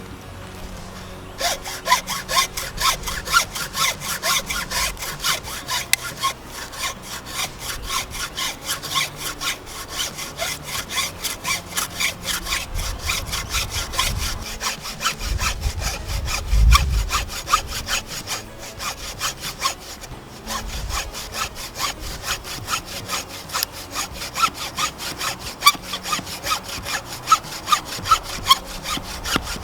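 Hand saw cutting through wood with steady back-and-forth strokes, starting about a second and a half in. There is one low thump about halfway through.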